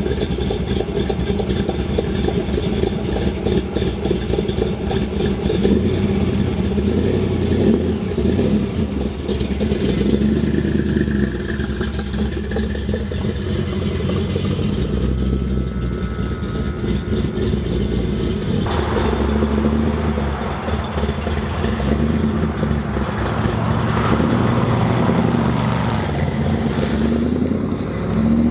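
Plymouth Barracuda's V8 exhaust at a steady idle, rising in pitch near the end as the engine is revved.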